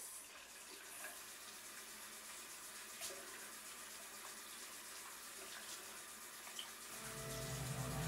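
Bathroom sink tap turned on and running, water splashing as hands wash in the stream for ablution (wudu) before prayer. The water starts suddenly and runs steadily.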